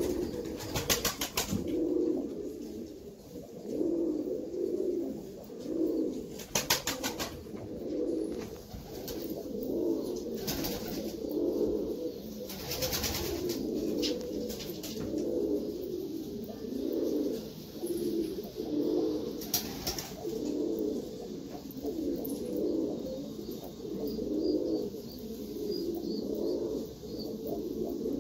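Black domestic tumbler pigeons cooing, one low rolling coo after another without pause. Several short bursts of wing flapping break in, about five.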